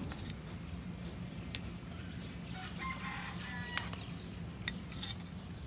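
A rooster crows once, faintly, about three seconds in, over a steady low hum and a few light clicks.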